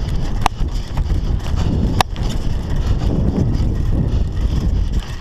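Scott Scale 960 hardtail mountain bike rolling over dirt forest singletrack: tyre rumble and wind buffeting on the GoPro's microphone, with two sharp clicks about half a second and two seconds in.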